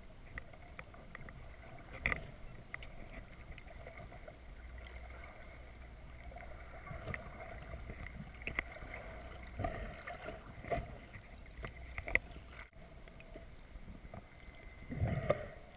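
Muffled underwater ambience through a submerged camera housing: a low steady wash of water noise with scattered faint clicks, and a louder low rumble of water movement near the end.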